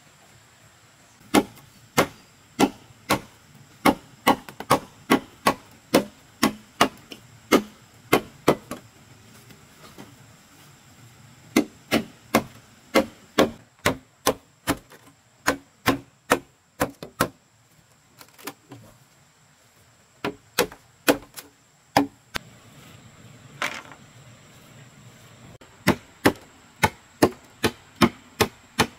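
Machete chopping into fresh green bamboo poles: sharp single strikes about two a second, in runs broken by short pauses, as the blade notches through the poles to cut them.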